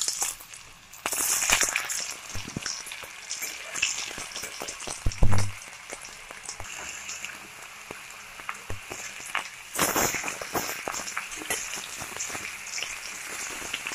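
Steamed potato chunks sizzling and crackling as they fry in hot mustard oil in a kadai, with a dull thump about five seconds in and a spatula stirring them near the end.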